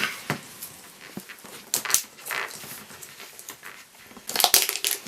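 Plastic toy-egg packaging being handled and opened: crinkling wrapper and sharp plastic clicks, busiest about a second and a half in and again near the end.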